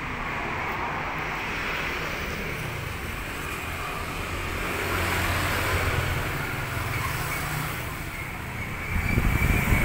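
Steady traffic noise from road vehicles, with a low engine hum, swelling louder with a rumble near the end.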